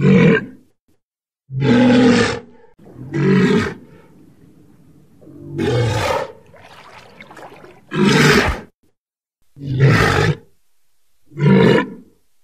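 Walrus giving a series of short, low calls, about seven in all, one roughly every one and a half seconds.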